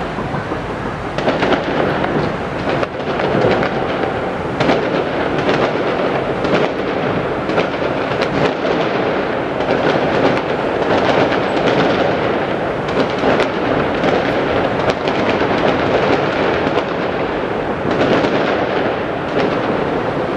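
Large fireworks display: a continuous barrage of many overlapping bangs that runs without a break.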